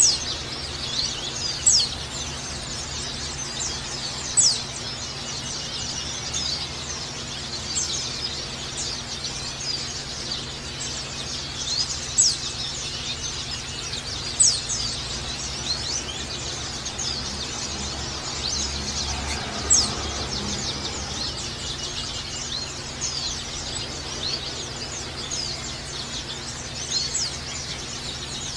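White-eyes (pleci) chirping and twittering: a dense, high chatter with a louder, sharp chirp every few seconds.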